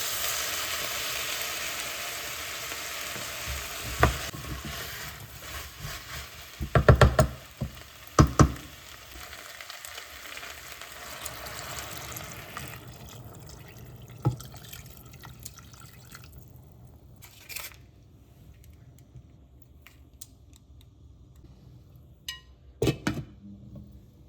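Sizzling in a hot pan, a dense hiss that fades away after about twelve seconds, with several knocks and clatters of kitchen utensils against cookware.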